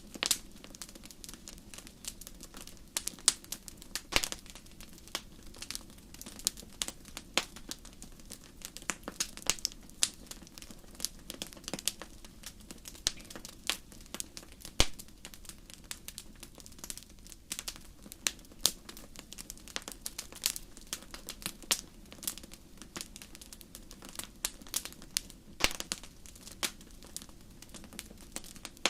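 Wood fire crackling in a fireplace: irregular sharp pops and snaps, some louder than others, over a soft steady hiss of burning logs.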